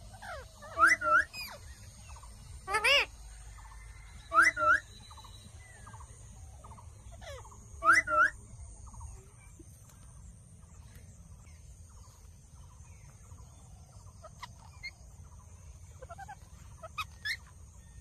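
Rose-ringed parakeets calling: four short, loud, shrill calls in the first half, each in two quick parts. After them come softer scattered clicks and a few faint calls.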